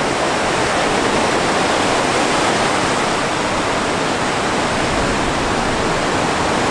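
Sea surf breaking on a sandy beach: a steady rushing wash of waves.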